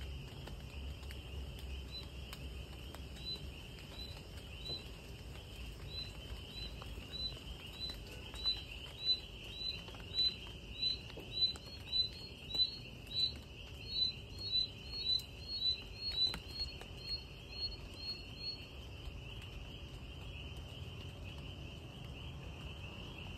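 Night insect chorus: a steady high trill, with a short repeated chirp about twice a second that grows louder in the middle and stops a few seconds before the end. Faint scattered drips of light rain.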